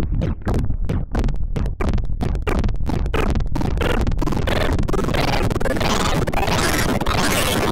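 Electronic music: a fast stuttering pulse that speeds up and rises in pitch, merging into a loud, dense noisy wash about five seconds in.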